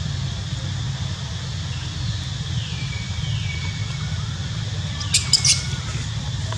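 A quick run of three sharp, high squeaks about five seconds in, over a steady low rumble and a faint high drone.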